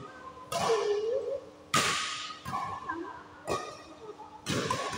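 Badminton rackets striking a shuttlecock during a rally: a handful of sharp smacks about a second apart, each echoing in the hall. A short squeak about a second in, likely sports shoes on the court floor.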